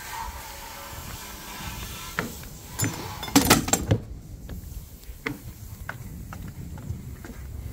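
A brief cluster of knocks and handling noise about three and a half seconds in, then footsteps climbing outdoor deck stairs, light steps about every half second.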